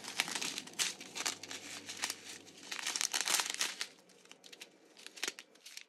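Small plastic zip bags of diamond painting drills crinkling as they are handled and shuffled, a rapid crackly rustle that thins out after about four seconds.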